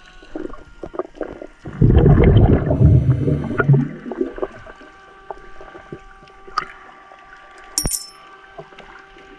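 Underwater sound picked up by a diver's camera. About two seconds in there is a loud rush of churning water and bubbles lasting about two seconds. The rest is a faint steady hum of several tones with scattered sharp clicks, one louder click near the end.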